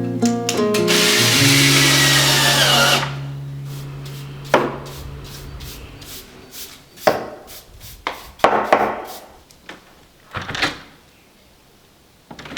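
A power tool, likely a drill, runs loudly for about two seconds and winds down, followed by a handful of sharp, separate knocks on wood.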